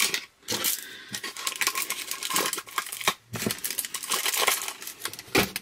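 Packaging crinkling and rustling in the hands as items are unwrapped and taken out of a box, a dense run of irregular crackles.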